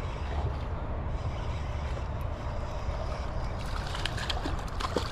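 Steady low rumble of wind buffeting the microphone, with a few short, sharp clicks about four seconds in.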